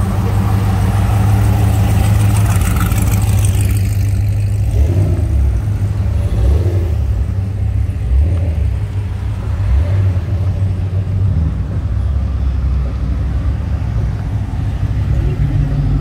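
Deep engine and exhaust rumble of cars and trucks rolling slowly past in a line, with the engine note rising and falling a few times in the middle.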